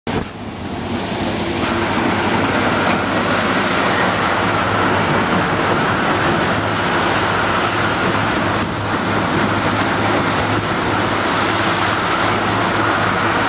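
Riverboat engine running steadily, a continuous drone with a low hum and a rushing noise over it.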